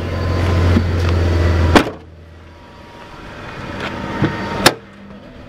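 A car running with a strong, steady low drone that builds and then cuts off suddenly with a sharp click about two seconds in. Quieter running noise then builds up and ends in another sharp click near the end.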